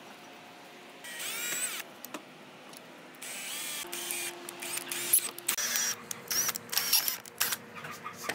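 Electric drill with a twist bit boring into steel clamped in a vise. The motor gives a brief whine that glides in pitch about a second in. It runs again from about three seconds in, steadily at first, then in short uneven bursts with high-pitched squeals as the bit cuts the metal.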